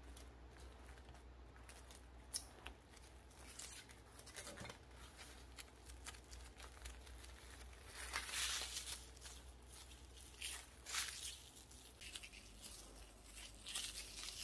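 Plastic cling wrap crinkling and rustling in short, irregular bursts as it is wound tightly around a rolled bread sandwich, loudest about eight seconds in.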